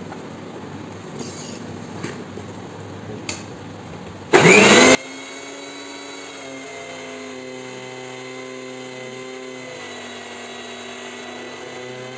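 Preethi Crown mixer grinder starting up about four seconds in, a short loud burst rising in pitch, then running with a steady hum as it grinds garlic cloves into egg white and lemon juice. There are a few light clicks from handling the jar and lid before it starts.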